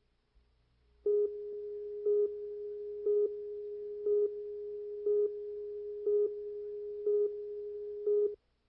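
Broadcast tape leader line-up tone: a steady pure test tone that starts about a second in, with a louder beep once a second, eight in all, then cuts off suddenly.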